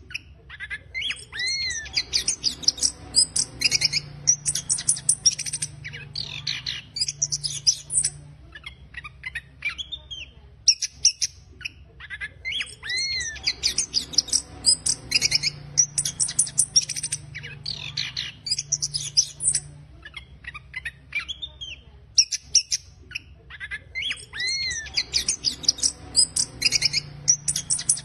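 Chestnut-capped thrush (anis kembang) singing its rough, rapid twittering song, 'ngeriwik kasar': long runs of fast high notes and quick rising chirps, broken by short pauses about every eleven seconds.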